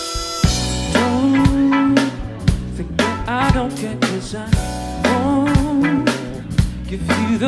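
Live big band playing a funk groove, with horn section riffs over a drum kit, bass and keys. It opens on a hit, and the full band comes back in about half a second later with a steady drum beat.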